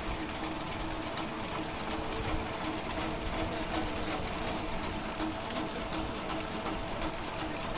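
Macaroni production-line machinery running steadily at the mesh conveyor: an even mechanical hum with a rapid, faint clatter.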